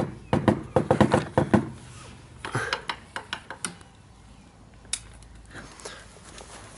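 Wooden drumsticks knocking and clattering as they are handled: a quick run of sharp clicks at the start, a looser handful a couple of seconds later, and one more click about five seconds in.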